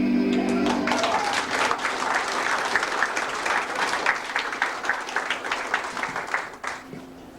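The song's last held chord dies away about a second in, and the congregation breaks into applause. The clapping thins out and fades near the end.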